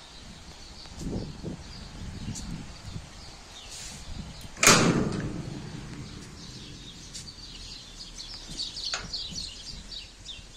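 A corrugated sheet-metal gate bangs shut about halfway through, one loud clang that rings on briefly. Small birds chirp throughout.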